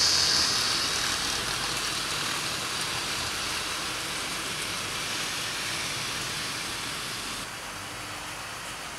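OO gauge model trains running on the layout: a steady whirring hiss of wheels on rails and motors. It is loudest at the start as a rake of freight wagons rolls past close by, then eases off and drops a little more near the end.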